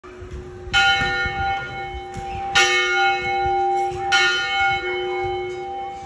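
A single church bell, rung as the evening bell, struck three times about a second and a half to two seconds apart, each stroke ringing on and overlapping the next.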